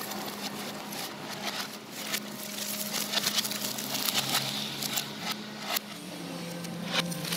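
Excavator engine running with a steady low hum while the wood-frame house it is demolishing cracks and clatters in a stream of sharp snaps. The engine note drops a little near the end.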